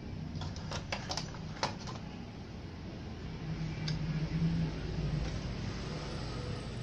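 CRT television's main circuit board and plastic chassis being handled: several light clicks and knocks in the first two seconds, then a steady low rumble in the background.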